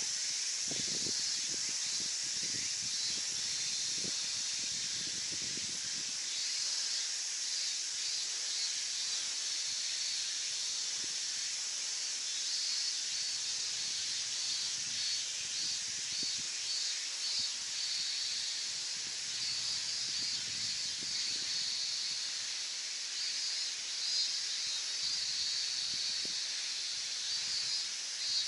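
A steady, high-pitched chorus of insects chirring, with a pulsing rhythm that rises and falls.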